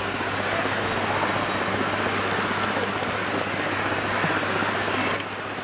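Shallow river water rushing steadily over rocks, with water splashing around elephants being bathed.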